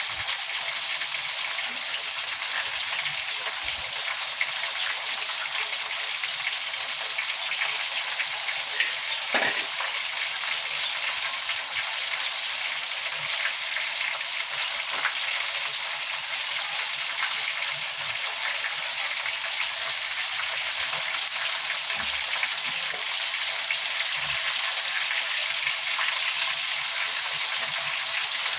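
Chicken pieces deep-frying in hot canola oil: a steady sizzle.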